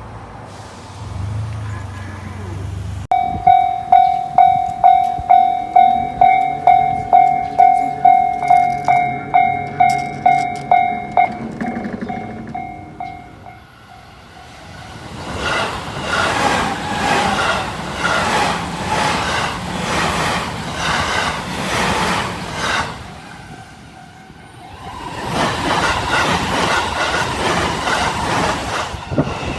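A low hum gives way, about three seconds in, to a Japanese level-crossing warning bell ringing about twice a second, which stops after some eight seconds. Then an electric train on the JR West Hanwa Line passes the crossing, its wheels clattering rhythmically over the rail joints, in two long loud stretches with a short lull between.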